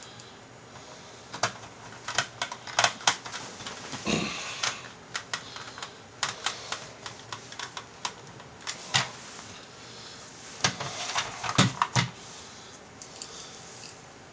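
Irregular clicks and taps of hard plastic and small screws being handled as the back cover is fitted onto a Corvette CJ2 HVAC control module's black plastic case and its screws are set in place.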